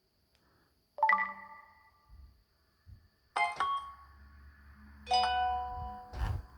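Samsung Galaxy Tab A notification tones played one after another: three short chimes about two seconds apart, the last a held chord of several tones. A short knock comes near the end.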